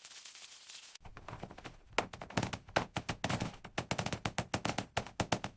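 Sped-up construction noise: a rapid, irregular run of knocks and taps, several a second, like hammering in fast motion. It starts about a second in, after a brief hiss.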